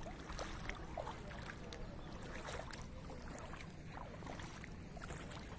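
Steady low rush of flowing floodwater, with scattered faint short chirps over it.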